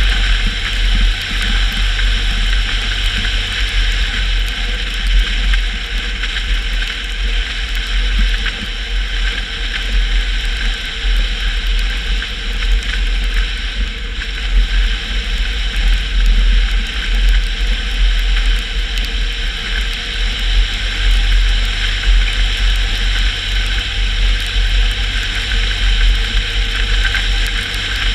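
Car driving on a wet road: a steady low engine drone with an even hiss of tyres and spray.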